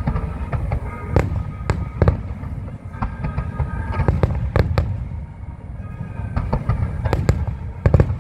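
Aerial fireworks bursting: about a dozen sharp bangs at irregular intervals over a continuous low rumble.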